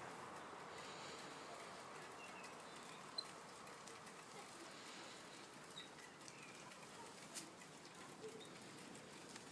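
Quiet woodland ambience: faint scattered short bird chirps with a few soft clicks.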